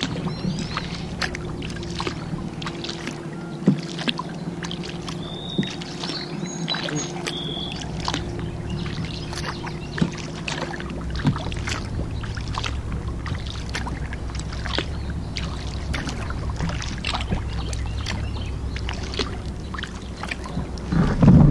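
Kayak paddle dipping and splashing in river water, with irregular splashes and drips over a low steady hum.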